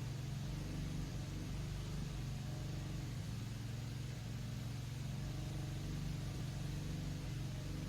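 Electric buffer/polisher running steadily with a constant motor hum while buffing glaze into a cloudy headlight lens.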